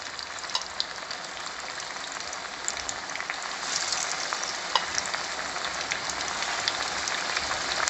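Battered brinjal slices frying in hot oil in a nonstick pan: a steady sizzling hiss with scattered crackles and pops, growing louder about halfway through as more battered slices go into the oil.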